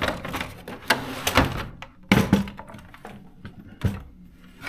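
Clunks and clicks of a portable typewriter's case being handled and taken off, a handful of separate knocks with the loudest a little after two seconds in.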